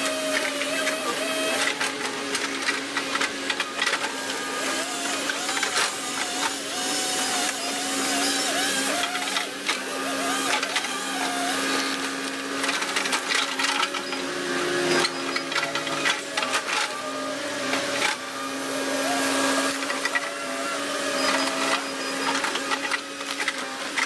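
Volvo ECR145EL excavator running under working load: a steady engine hum with a hydraulic whine that rises and falls in pitch as the controls are worked. Over it come many sharp cracks and snaps of wood and brush being broken and pushed.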